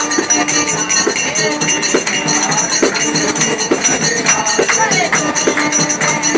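A group of men singing a Shiva kirtan chant together, with hand-clapping and jingling hand percussion keeping a steady beat of about one stroke a second.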